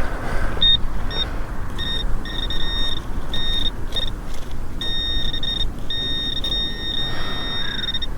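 Minelab Equinox 800 metal detector giving a crisp, high, steady-pitched beep over a coin target, cutting in and out repeatedly as the coil passes over it, with some short beeps and some held over a second. The target is a 2p coin.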